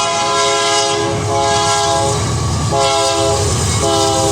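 Diesel locomotive multi-chime air horn sounding a chord in a run of blasts about a second long with short breaks between them, over the low rumble of the passing train.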